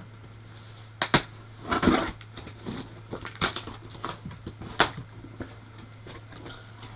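Cardboard shipping box being opened by hand: several sharp knocks and taps with rustling of the box and packing paper in between, over a steady low hum.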